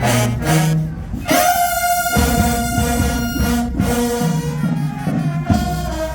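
College marching band playing: brass horns hold sustained notes over drum beats.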